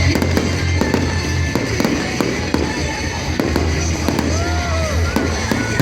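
Fireworks salute going off: repeated bangs and crackles all through, over music playing underneath.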